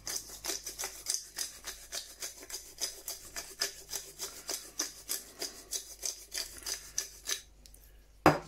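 Hand pepper grinder being twisted, grinding black pepper in a steady run of crunching strokes, about four or five a second, that stop about seven seconds in. A single sharp knock follows near the end.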